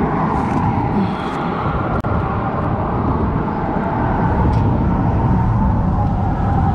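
Steady low outdoor rumble that runs unbroken under the fight with the fish.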